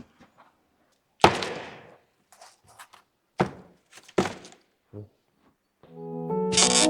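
A single heavy thunk about a second in, followed by a few faint clicks and three shorter knocks; music begins near the end.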